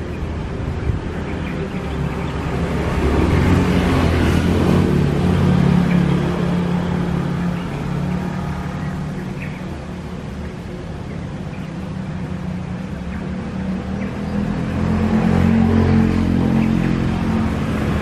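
An engine running, a steady low hum that swells louder twice, a few seconds in and again near the end.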